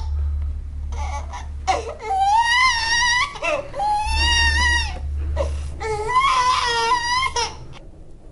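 Infant crying: three long, high-pitched wailing cries with short breaths between them, from a baby running a high fever.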